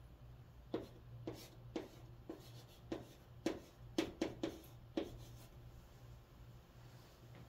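Chalk writing on a chalkboard: a quick run of about ten short, sharp taps and scrapes as a word is written, stopping about five seconds in.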